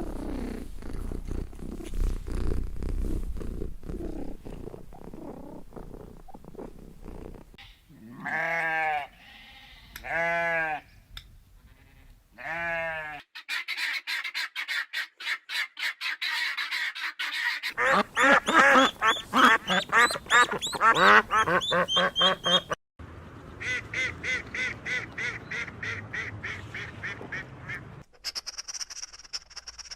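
Several different animals calling in turn. It starts with a low rumble, then three drawn-out calls about eight seconds in, then fast, rapidly repeated calls and chatter through the rest.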